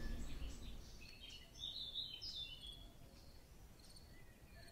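Faint birdsong over a quiet outdoor background: small birds chirping, with a short cluster of chirps about two seconds in.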